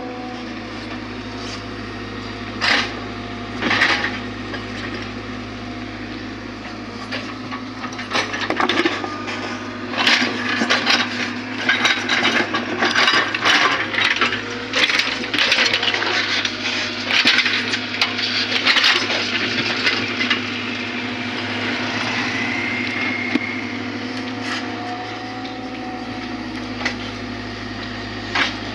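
Excavator engine running steadily, with a dense run of sharp knocks and cracks from about 8 to 20 seconds in, stone striking stone as rocks are handled for a stone retaining wall. A couple of single sharp knocks come earlier.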